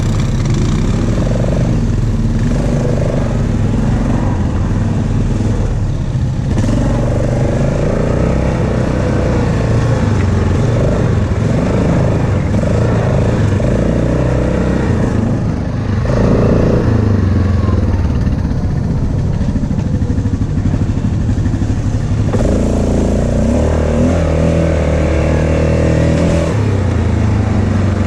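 ATV engine running as the machine rides along a dirt trail, its engine note shifting up and down several times with the throttle.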